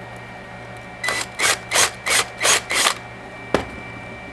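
Drill with a Forstner bit cutting into 3D-printed plastic infill in six short pulses, about three a second, then a single sharp click.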